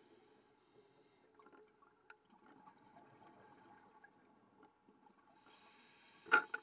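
Faint underwater ambience with a scuba diver breathing through a regulator: a quiet bubbling murmur, then a hiss and a short loud burst of bubbles near the end.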